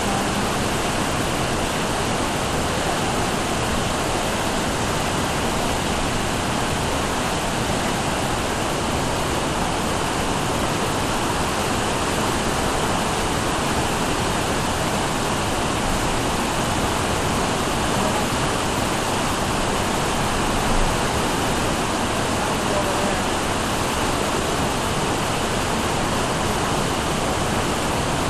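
Floodwater of the Turkey River rushing at high flow: a steady, unbroken noise of fast-moving water.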